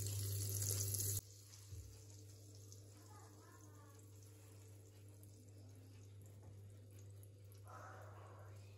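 Butter sizzling as it melts on the hot plates of an electric waffle maker, an even hiss that cuts off suddenly about a second in. After that there are only faint soft sounds of a silicone pastry brush spreading melted butter over the plates, over a steady low hum.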